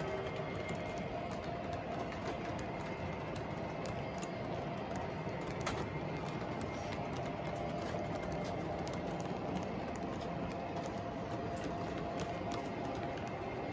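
Model freight train rolling past on the track: a steady rumble of metal wheels on rail under a faint hum, with scattered clicks as the cars cross rail joints.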